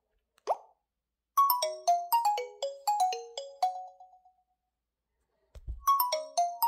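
Nokia 3210 4G ringtone playing through the phone's speaker: a melody of quick notes stepping mostly downward, which ends after about three seconds and then starts again after a short gap as the tone loops. A single short rising blip comes just before the melody, and a low thump just before it repeats.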